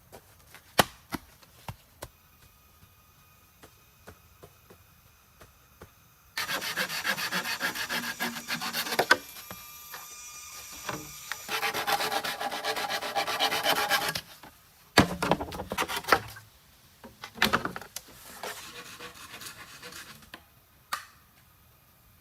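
Hand scraping on wood in two long, dense stretches, with scattered clicks and knocks before and after.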